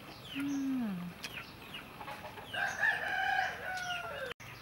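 A rooster crows once, a long call held steady and then falling at the end, about two and a half seconds in. Thin, quick falling peeps from small birds or chicks come and go, and a short low hum that drops in pitch is heard near the start.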